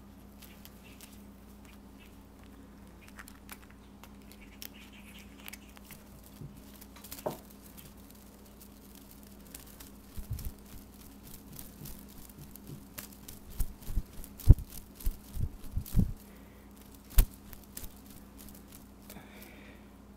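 A cat playing with a feather toy: rustling and scrabbling of paws and feathers, then a run of sharp knocks and thumps in the second half as the cat bats and grabs at the toy. A steady low hum runs underneath.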